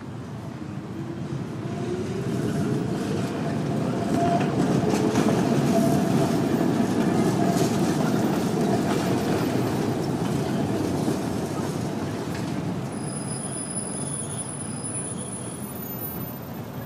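Articulated electric tram passing close by on street track: its wheels rumble on the rails, rising to a peak about halfway and fading as it moves off, with thin high wheel-squeal tones near the end.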